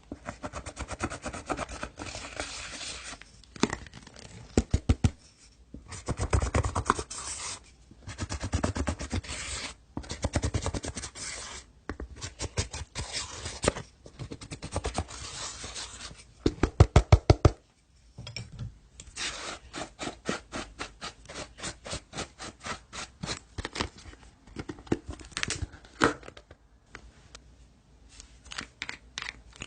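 Hands squishing and stretching slime: wet rubbing sounds broken by quick runs of small popping clicks, with a loud burst of rapid pops about two thirds of the way through.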